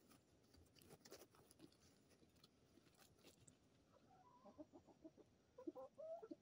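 Hens clucking softly in a run of short calls that starts about four seconds in and grows louder near the end. A few faint ticks come before it.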